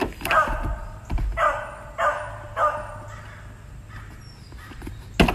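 Four short animal calls, each about half a second long, in the first three seconds. A single sharp knock comes near the end.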